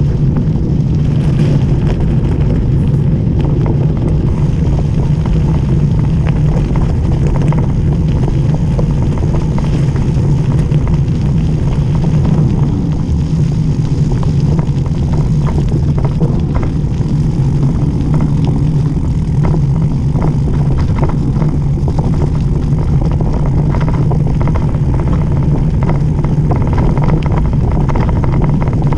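Mountain bike rolling fast down a wet gravel track: a loud, steady rumble of tyres and wind on the camera microphone, with frequent small clicks and rattles of grit and the bike over the rough surface.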